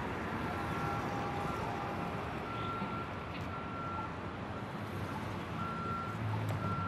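Vehicle reversing alarm beeping repeatedly at one steady pitch, roughly once a second, over a steady background hum.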